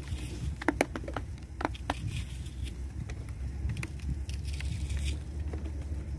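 Wind rumbling on the microphone, with a quick run of small clicks and crackles about a second in and a few more scattered later, from things being handled close by.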